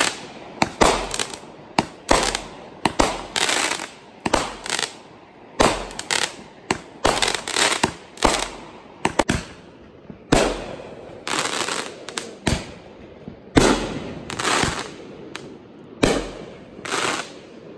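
Consumer aerial fireworks launching and bursting: an irregular run of sharp bangs, about one to two a second, with crackling between them.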